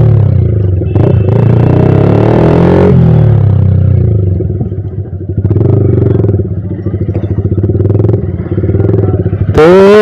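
Sport motorcycle's engine and exhaust heard from the saddle while it is ridden slowly. The revs rise and fall a couple of times in the first three seconds, then it rolls at low revs with the throttle opening and closing.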